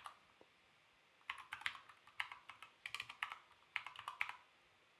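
Computer keyboard keys tapped in short quick runs of clicks, typing numbers into a calculator, starting a little over a second in.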